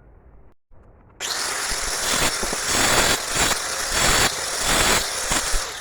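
Angle grinder cutting brick, starting about a second in and running loud with a rising and falling whine as the disc bites, stopping near the end.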